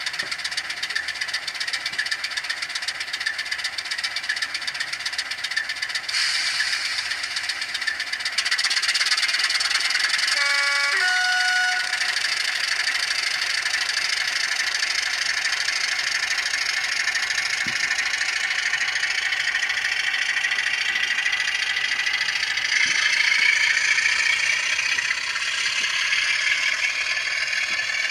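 Recorded Class 27 diesel engine sound from a DCC sound decoder, played through an N gauge model's tiny speaker: a rattly diesel running, growing louder about a third of the way in, with a short two-note horn sounded near the middle, and the engine note shifting in pitch toward the end.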